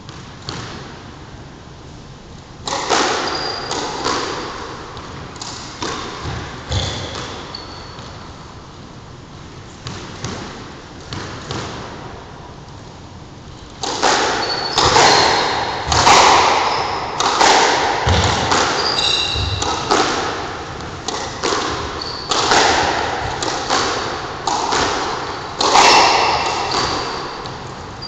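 Squash rally: the ball cracking off rackets and smacking against the court walls and floor, each hit echoing in the court, with short high squeaks of court shoes on the wooden floor. Hits come a few at a time at first, then fast and steady from about halfway.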